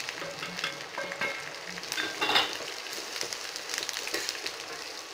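Turkey berries and spices frying and crackling in hot sesame oil in a steel pan, stirred with a steel ladle that clatters against the pan, once louder about two seconds in.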